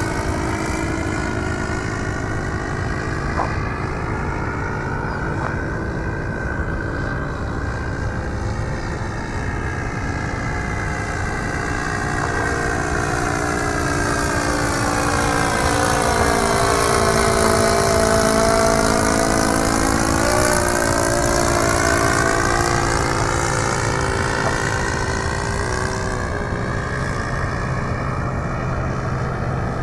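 Propeller engine of a Cub aeroplane droning steadily as it flies past, with a slow sweeping, phasing change in tone; it grows louder towards about two-thirds of the way through as the plane comes nearest, then eases off.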